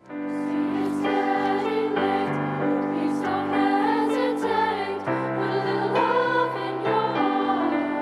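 Children's choir singing a sustained melody over instrumental accompaniment holding low chords.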